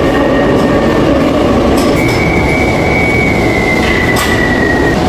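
Subway train running on the rails with a loud, steady rumble; about two seconds in a high wheel squeal sets in, drops slightly in pitch and stops near the end.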